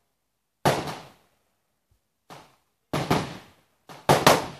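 Gunshots from other shooters on the range: three sharp reports, about a second in, about three seconds in and near the end, each ringing off briefly, with two fainter shots between.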